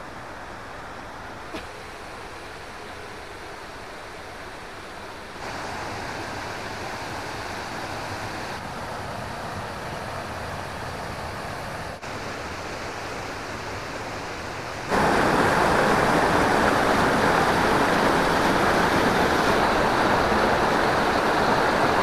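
Steady rush of falling water from a waterfall, a continuous even noise with no voices. It steps up a little about five seconds in and much louder about fifteen seconds in.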